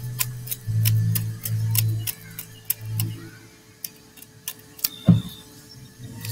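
Rapala fillet knife scaling a bass: sharp, scratchy scraping strokes against the scales, about two a second, with a short pause near the middle. A steady low hum runs underneath, and there is a single dull thump about five seconds in.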